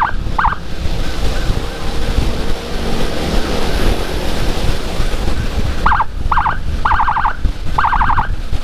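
Motorcycle escort siren (Whelen HHS Lite module through a Senken horn speaker) giving short chirps: two at the start, then four bursts of rapid chirps from about six seconds in, each burst longer. Under them, steady wind rush on the helmet microphone from riding.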